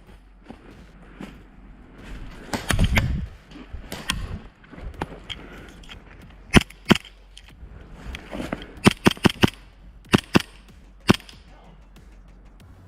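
Gas airsoft pistols firing in a duel: sharp pops, single shots here and there and a quick string of about six shots in the second half. Low rustling and handling noise around a quarter of the way in.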